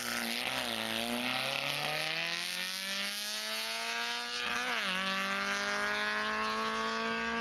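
Racing car engine accelerating hard, its pitch climbing steadily, dropping sharply at a gear change about four and a half seconds in, then climbing again.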